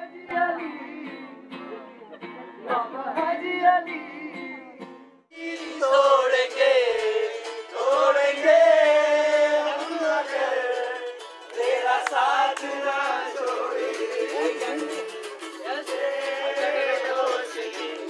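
Live acoustic jam: voices singing over strummed acoustic guitars. About five seconds in the sound cuts and comes back louder.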